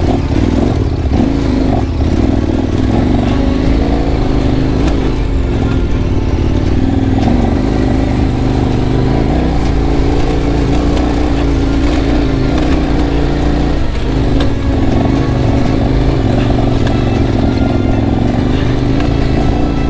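KTM 1190 Adventure R's V-twin engine running steadily under load as the bike climbs a loose dirt hill, its pitch wavering a little with the throttle.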